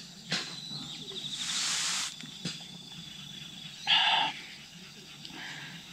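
Insects trilling steadily in the background at dusk, with a short hiss about a second and a half in and a brief pitched call at around four seconds.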